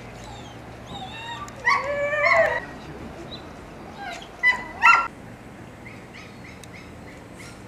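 Dogs in shelter kennels whining and barking: a drawn-out whine about two seconds in, then two short barks about five seconds in.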